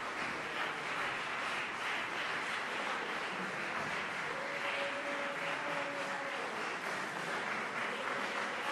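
Audience applause, steady and even, continuing as the stage empties; a faint held tone sounds over it about four seconds in.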